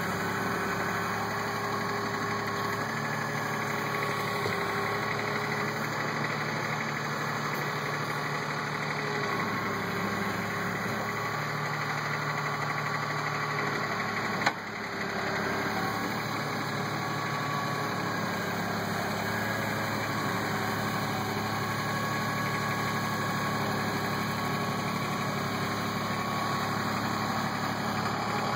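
Kubota B1700 compact tractor's three-cylinder diesel engine running steadily while it pushes snow with its blade, its pitch shifting slightly now and then. A single sharp knock comes about halfway through.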